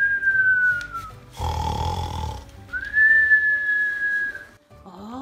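Cartoon-style snoring: a rasping snore breathed in, then a long, slightly falling whistle breathed out, heard twice. A short rising tone starts near the end.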